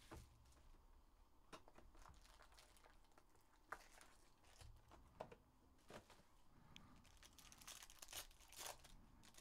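Faint crinkling of foil trading-card packs and rustling of a cardboard hobby box as they are handled, with scattered small crackles and clicks.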